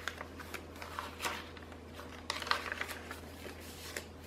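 Paper pages of a handmade junk journal being turned by hand: a string of short paper rustles and flaps, with louder ones about a second in and again around two and a half seconds in.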